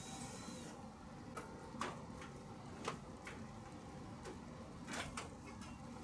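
Scattered light clicks and taps, about eight in all, from handling parts inside the open casing of an outdoor air-conditioning unit, over a low steady rumble.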